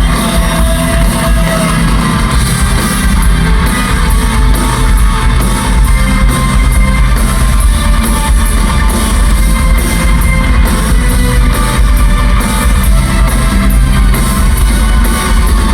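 Live rock band playing loudly and without a break: electric guitars over bass and drums.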